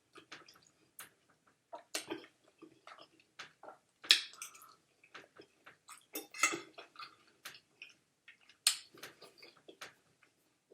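Close-miked chewing and wet mouth smacking while eating spaghetti: a string of irregular clicks and smacks, with a few louder ones every couple of seconds.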